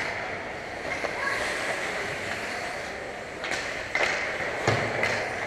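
Ice hockey play in a rink: skates scraping the ice, with a few sharp stick-and-puck clacks in the second half, the loudest near the end.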